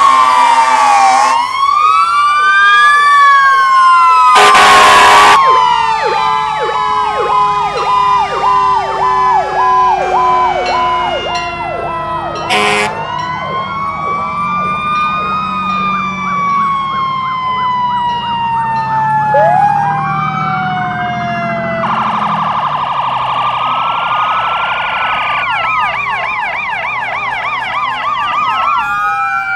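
Several fire truck sirens sounding at once, loud: overlapping slow rising and falling wails and fast yelps, broken by a few short, very loud horn blasts.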